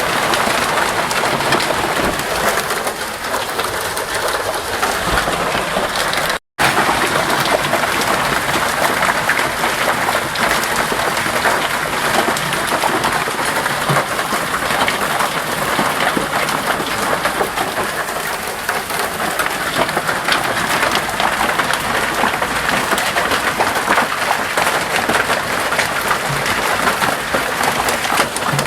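Hailstones falling heavily, a dense, continuous patter of countless small impacts on hard surfaces. The sound cuts out completely for a moment about six seconds in.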